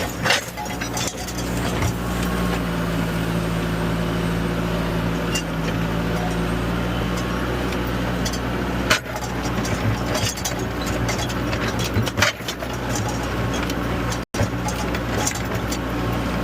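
Bobcat 863G skid steer's diesel engine running steadily under work, heard from the operator's seat, with scattered clicks and knocks from the machine and debris. The sound cuts out for an instant about fourteen seconds in.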